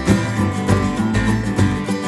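Country-style band music with no vocals: strummed acoustic guitar over a bass line and a steady beat.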